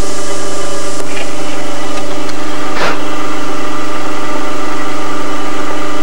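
Drill press motor running steadily with a constant hum, used for countersinking rivet holes in a hinge, with a single sharp click about three seconds in.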